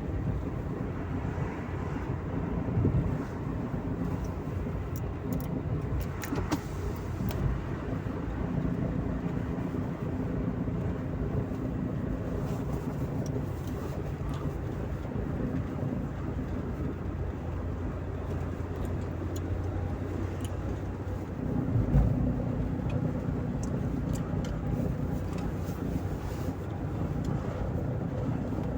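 Audi A2 1.2 TDI's three-cylinder diesel engine running steadily, with a brief swell in level about three-quarters of the way through.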